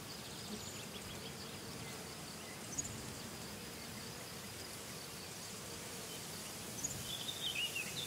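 Meadow ambience: a steady high insect trill with a faint low buzz and a soft background hiss. A couple of short high chirps come about three and seven seconds in, and a brief wavering bird call sounds near the end.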